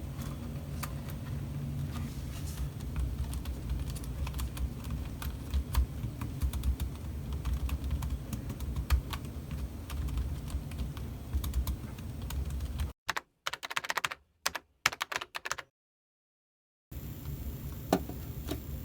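Typing on a Logitech K380 Bluetooth keyboard: irregular key clicks over a low steady hum, broken by a short stretch of silence about two-thirds through.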